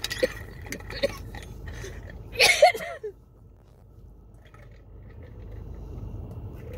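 A person's coughing fit from a tickle in the throat: a run of short hacking coughs in the first second, then one loud, harsh cough about two and a half seconds in.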